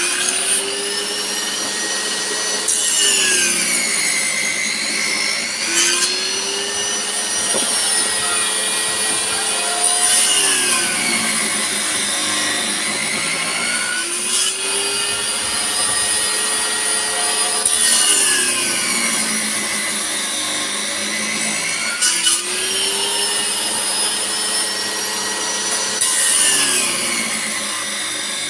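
Table saw cutting tenon cheeks in a board held upright against the blade: the motor's pitch sags as each cut loads the blade and climbs back as it frees, about every four seconds. An angle grinder cutting steel runs steadily alongside.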